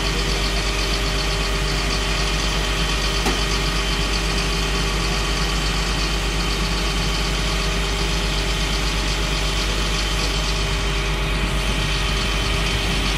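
Tow truck engine idling steadily, an even deep hum that does not change.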